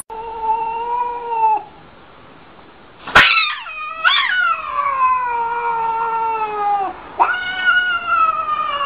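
Cat yowling: long drawn-out calls, the middle one about four seconds long, with a short pause and a sharp click about three seconds in.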